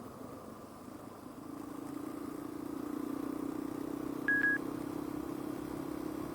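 Motorcycle engine running steadily, growing louder about a second and a half in. A short high beep sounds about four seconds in.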